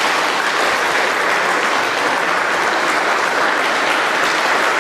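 A row of seated kendo students applauding together, a steady, dense clapping.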